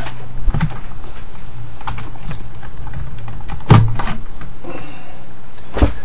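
Hard drive and computer parts being handled on a workbench: scattered clicks and knocks, with louder knocks about half a second in, near four seconds in (the loudest) and just before the end, over a steady low hum.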